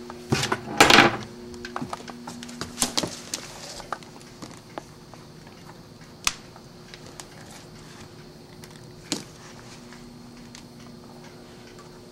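Handling clicks and knocks of a battery charger's clamps on a car battery and a multimeter being moved, in a quick cluster over the first few seconds and then singly twice, over a faint steady hum.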